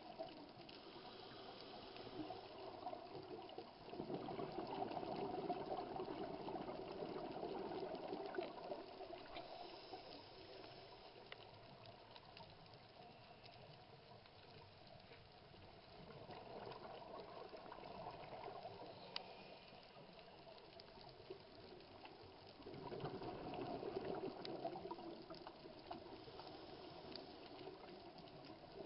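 Scuba diver's regulator exhaust bubbles heard underwater through the camera housing: three bubbling bursts as the diver breathes out, with a low watery hiss and a few faint ticks between them.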